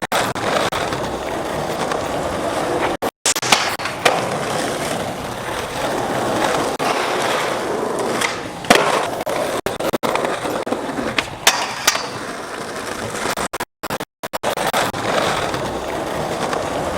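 Skateboard wheels rolling over pavement, with a few sharp clacks of the board hitting the ground, the loudest about nine seconds in. The sound breaks off abruptly a few times where clips are cut together.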